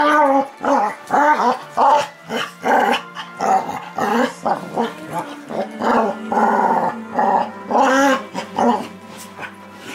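Dogs play-fighting: a run of short growls and yappy snarls, one about every half second, from a small terrier puppy tussling with a larger brindle dog.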